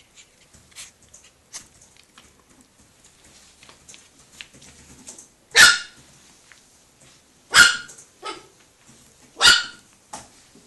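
Chihuahua puppy barking: three sharp, high yaps about two seconds apart in the second half, with softer yaps after the second and third, following a few faint light clicks.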